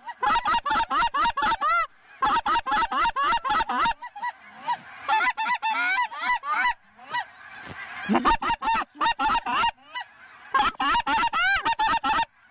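Lesser Canada geese calling in fast, loud strings of short honks and clucks, five strings with brief lulls between them, where the wider flock's calling carries on more faintly.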